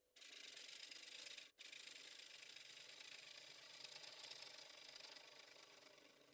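Red oak bowl spinning on a wood lathe with something working against its surface: a steady, scratchy hiss over a faint motor tone. It cuts out for a moment about a second and a half in and fades away near the end.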